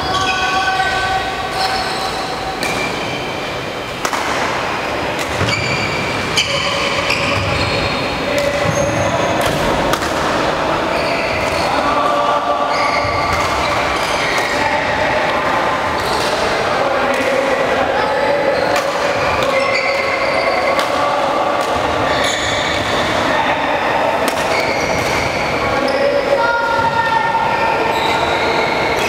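Sports-hall sound of court shoes squeaking on a wooden floor: many short squeals at different pitches, overlapping one after another, with scattered sharp clicks of shuttlecocks being hit.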